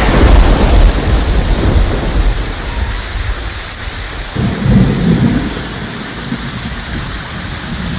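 Thunder rumbling over steady heavy rain. A loud deep rumble fades over the first few seconds, then a second, shorter rumble comes about four and a half seconds in.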